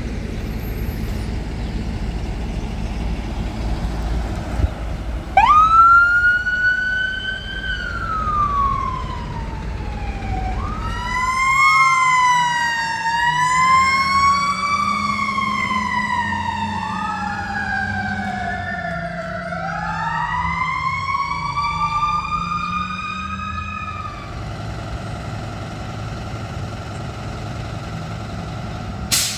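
Emergency vehicle electronic sirens pulling out on a call. A vehicle engine rumbles low at first. About five seconds in, a siren starts with a quick rise and then a slow falling wail. From about eleven seconds two siren wails overlap, rising and falling against each other, and they fade out near twenty-four seconds, leaving engine and traffic noise.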